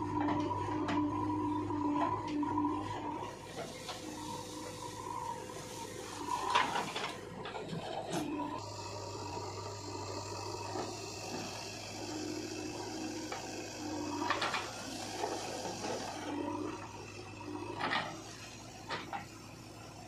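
JCB 3DX backhoe loader's diesel engine running steadily with a constant hum while the backhoe bucket digs and tips soil into a tractor trolley. There are several sharp knocks of the bucket and a rushing hiss of earth pouring out over several seconds in the middle.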